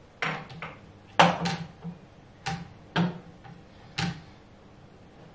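A wire cake cooling rack knocking and clinking against the floor of a glass display cabinet and the heat mat as it is set down and shifted into place: about eight irregular sharp knocks, the loudest about a second in.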